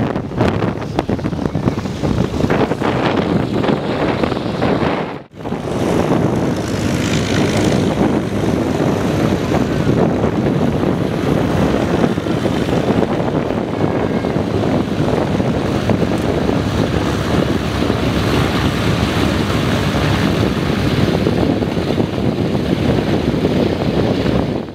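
Radial engines of a B-24 Liberator running as the bomber taxis, then, after a sudden break about five seconds in, a P-51 Mustang's V-12 engine and propeller running steadily as the fighter taxis.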